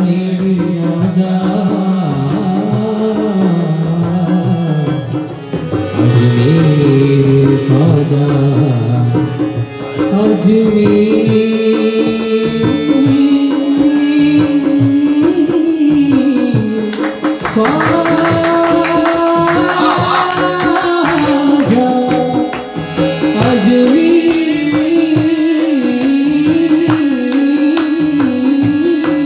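Qawwali-style singing: a voice carries a wavering melody over tabla drumming, with the drumming growing busier about two-thirds of the way through.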